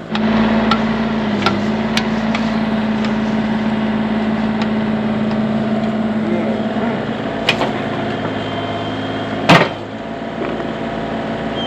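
Bobcat mini excavator's diesel engine working under hydraulic load as it digs, rising sharply at the start and easing off about seven seconds in. Scattered knocks run through it, with one loud clank about nine and a half seconds in.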